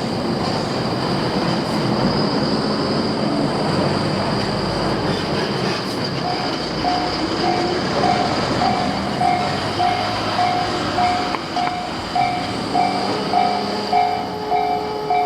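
A train running past on the rails with a dense, steady rumble. From about six seconds in, the level crossing's electronic warning bell is heard ringing about twice a second. Near the end a steady tone joins it.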